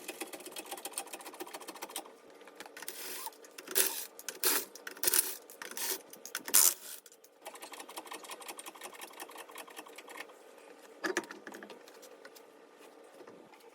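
Rapid, even mechanical ticking from a tool working a screw out of a car tire's tread, with a few louder clatters in the middle and once more near the end.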